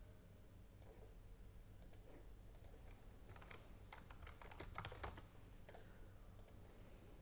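Faint computer keyboard typing: scattered key clicks, bunched more thickly in the middle of the stretch.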